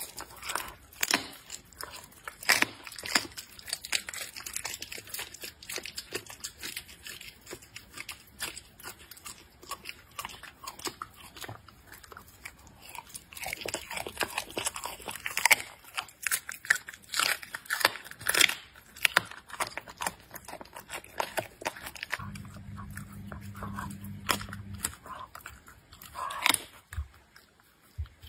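Leopard cub eating raw meat: chewing and licking, with many sharp clicks and crunches of biting. A low steady hum comes in for about three seconds near the end.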